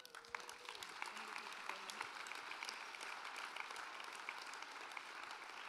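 Audience applauding: many hands clapping in a steady, dense patter that starts suddenly and holds through.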